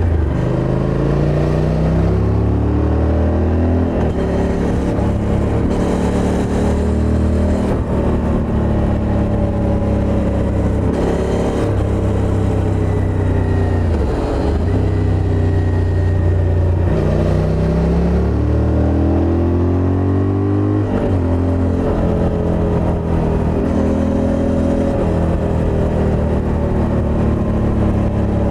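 Suzuki V-Strom motorcycle's V-twin engine running under way, its revs climbing and then dropping back several times over, as in pulling through the gears and easing off.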